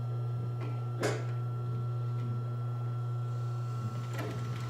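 Pfaff 545 H4 industrial walking-foot sewing machine's motor humming steadily while the machine sits idle. There is a sharp click about a second in and another near the end, just as the machine begins to engage.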